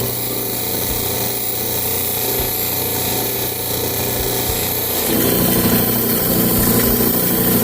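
Lapidary cabbing machine running, its motor humming steadily while a picture jasper stone is ground against a spinning wheel. The grinding grows louder about five seconds in.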